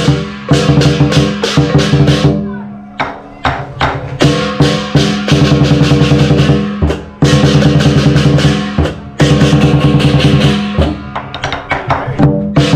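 Chinese lion dance percussion: the big lion drum beaten in fast strokes with a gong ringing and cymbals crashing along. About two seconds in the beat thins to a few scattered strokes, then the full rhythm comes back, with a fast even roll of strokes in the second half.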